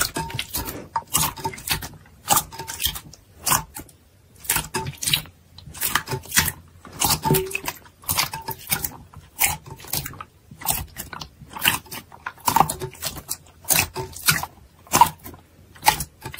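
Clear slime being squeezed and pulled apart by hand, giving an irregular run of short, sticky clicks and pops, a few a second.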